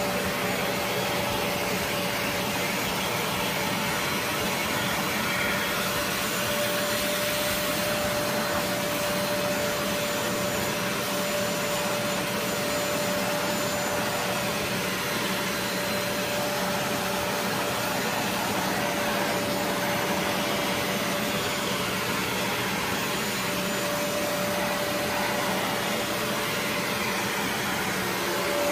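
Bissell 3624 SpotClean Professional portable carpet cleaner running steadily, its suction motor giving a constant whine over a dense rushing of air as the hand tool is drawn across carpet.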